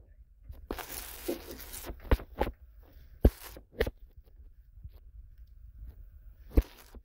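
Plastic packaging being handled: a second of rustling and crinkling, then a scattering of sharp clicks and knocks.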